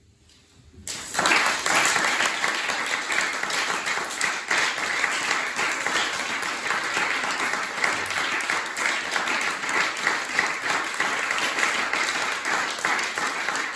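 Audience applauding, breaking out suddenly about a second in after a brief hush and continuing as steady, dense clapping.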